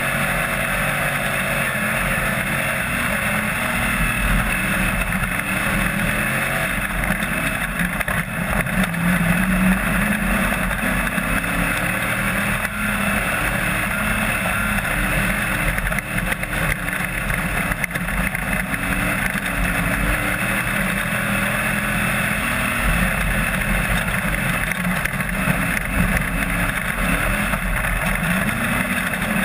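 AMCA national dirt-track race car's engine heard from inside the cockpit under racing load, its note rising and falling with the throttle through the corners.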